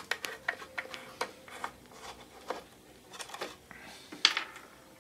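A screwdriver working the screws of a small wooden radio cabinet's back panel: irregular light clicks and scrapes of the tool on the screw heads and the hardboard back, with one sharper click about four seconds in.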